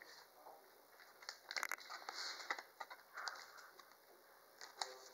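Faint rustling and light clicks of a thin clear plastic card sleeve being handled as a trading card is slid into it, in scattered short bursts, the busiest about two seconds in.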